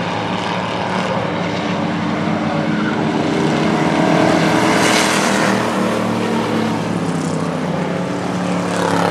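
A pack of short-track stock cars racing around the oval, several engines running together. The sound swells to its loudest about four to five seconds in as the cars pass.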